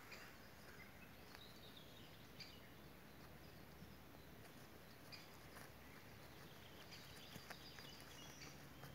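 Near silence: faint outdoor background with a few short, faint high chirps now and then.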